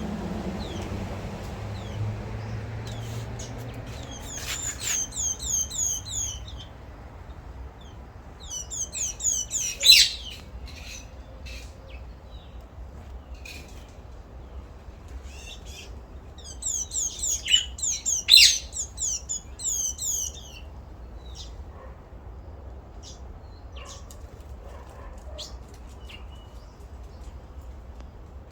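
Small birds chirping in three bursts of rapid, repeated high chirps, each one to four seconds long, with a sharp click in the second and third bursts. A low steady rumble runs underneath.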